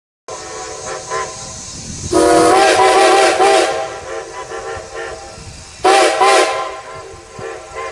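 A train horn sounding steadily. It swells into two much louder blasts with a slightly wavering pitch: one about two seconds in, lasting about a second and a half, and a shorter one near six seconds. A steady rumble and hiss of the train runs underneath.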